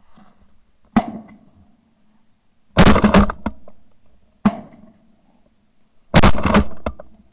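Shotgun shots: a single sharp report about a second in, a quick run of several shots around three seconds, another single report at about four and a half seconds, and a second run of several quick shots at about six seconds.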